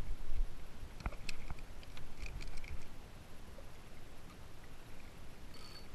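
Uneven low rumble of wind and movement on the microphone while a fish is fought on a bent spinning rod from a kayak. Over it come a few sharp clicks about a second in, then scattered short high squeaks.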